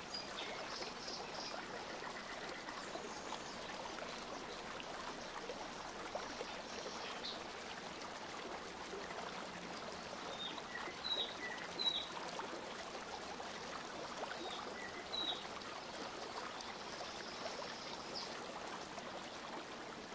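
Faint steady background hiss, with a few faint short high chirps about halfway through.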